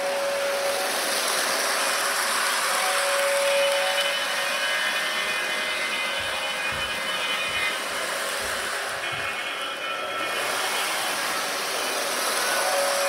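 Toy model trains running around their tracks: a steady whirring of small electric motors and wheels rolling on plastic track, with a faint whine that comes and goes and a few low knocks about halfway through.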